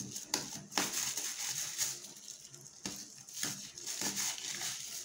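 A knife cutting into a salted herring: irregular small crunching and scraping sounds with a few sharper clicks.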